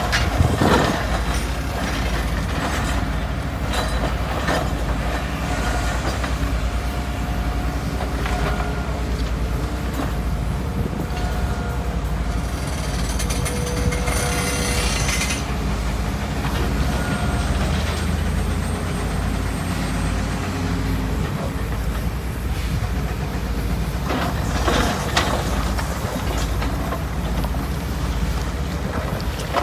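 Komatsu excavator and MAN dump truck diesel engines running steadily with a low rumble, mixed with squealing metal and occasional clanks as the excavator loads the truck.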